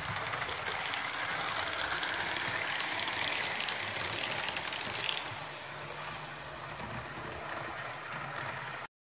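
HO-scale Fleischmann ICE 2 model train, fitted with a Faulhaber coreless motor, running smoothly along the track with a steady rolling rattle and fast fine clicking from its wheels on the rails. The sound drops after about five seconds as the train goes into a tunnel, then cuts off suddenly just before the end.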